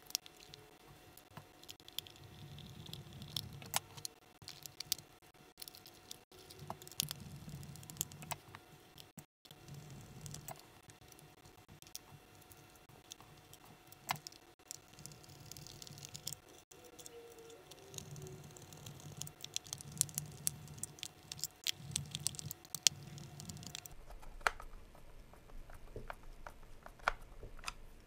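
VEX IQ controller being reassembled by hand: faint, scattered clicks and knocks of the plastic shell being handled and fitted together, with a few abrupt breaks where the fast-forwarded footage is cut.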